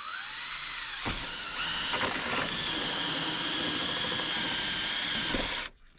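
Power drill boring a conduit hole through the roof and into a purlin. It runs up briefly, then cuts steadily with a high whine for about four seconds and stops abruptly just before the end.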